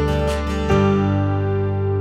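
Background music on acoustic guitar: strummed chords, with a last chord about two thirds of a second in that rings on and slowly fades.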